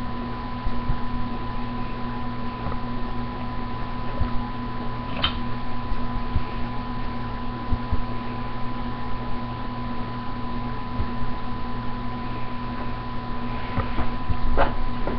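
A steady electrical hum with a few light clicks and knocks.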